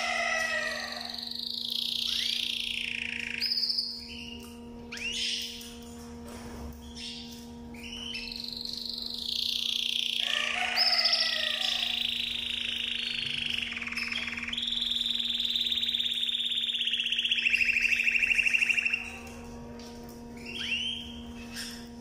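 Canary singing in long phrases of whistled glides and rapid rolling trills, with a long fast trill through the middle and a few short notes near the end. A steady low hum runs underneath.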